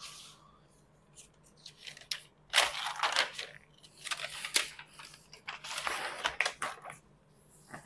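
Paper packaging rustling and crinkling as the wrap around a new laptop is pulled open. It starts quietly, with irregular sharp crackles from about two and a half seconds in.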